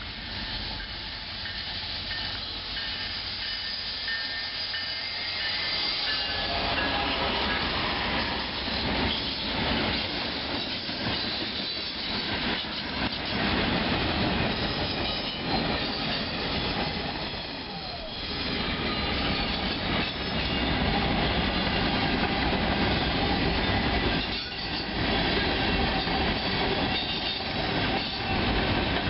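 A train rolling past: wheels clicking over rail joints, with thin high wheel squeal, growing louder about six seconds in.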